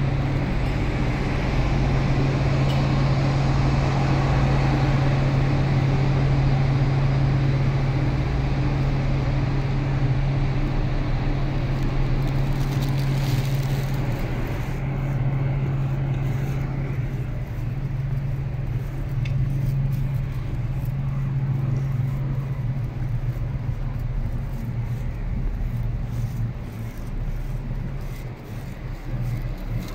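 Steady low machine drone with a constant deep hum under a wash of noise, echoing in an underground bus station; the higher noise fades a little about halfway through.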